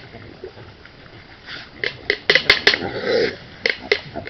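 An animal's short, noisy calls mixed with sharp clicks, busiest in the second half.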